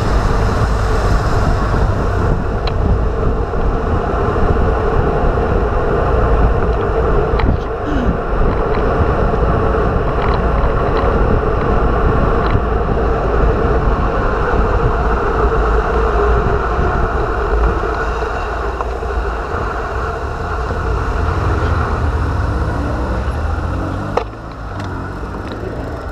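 Wind rushing over the camera's microphone, with tyre noise on asphalt, from a bicycle descending at speed: a steady loud rush with a few faint clicks. It drops noticeably about two seconds before the end.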